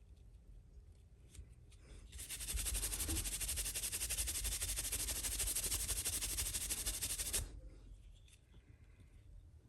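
Horsehair brush scrubbed rapidly back and forth over a baseball glove's leather, buffing it after mink-oil conditioning. A dense bristly scrubbing starts about two seconds in and stops abruptly about seven seconds in.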